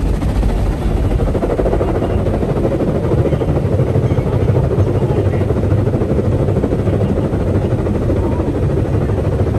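Automatic car wash spraying water over the car, heard from inside the cabin: a loud, steady rushing with a fast drumming flutter, like being in a helicopter.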